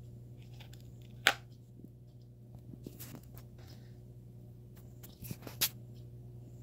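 A steady low hum, with a sharp click about a second in and two more close together a little after five seconds.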